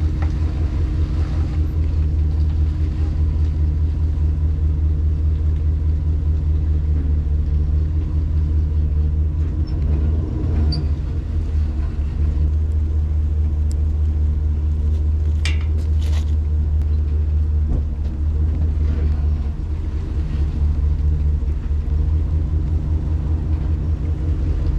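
Steady low rumble of a running vehicle engine, with a few faint clicks about fifteen seconds in.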